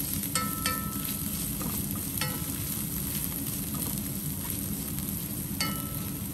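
Minced ginger, garlic and spring onion sizzling in oil in a frying pan as a wooden spatula stirs them, knocking the pan four times so that it rings briefly. A kitchen extractor hood hums steadily underneath.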